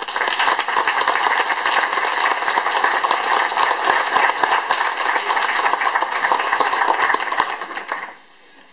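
Audience applause: many people clapping densely, then dying away near the end.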